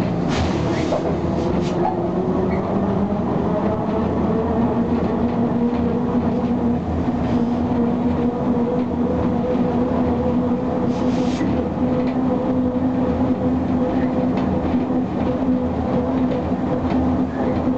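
British Rail Class 03 diesel shunter heard from inside its cab: the Gardner eight-cylinder diesel engine running under load, its pitch rising over the first few seconds and then holding steady, with the rumble of the wheels on the track. Two brief hisses break through, one near the start and one about eleven seconds in.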